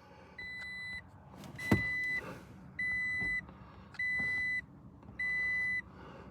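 2021 Toyota Tacoma's warning chime beeping in a steady even rhythm, five high beeps about a second apart. The engine has been left running while the driver steps out. One short thump comes about two seconds in.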